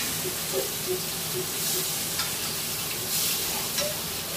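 Ribeye steak and butter sizzling in a hot cast iron skillet, the sizzle swelling twice, with a few short clicks and scrapes of a utensil against the pan.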